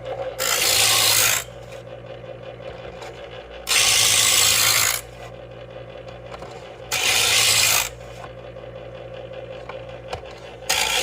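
Electric knife sharpener's motor running with a steady hum while scissor blades are pushed through its scissor-sharpening slot: four harsh grinding rasps, each about a second long, roughly three seconds apart, the last near the end.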